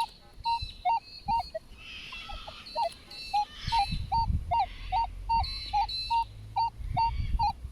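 Minelab Manticore metal detector giving target tones: a steady run of short beeps, about two to three a second, as the coil is swept back and forth over a buried target in All Terrain General mode. It is a fairly good, repeatable signal from what turns out to be a small metal rivet.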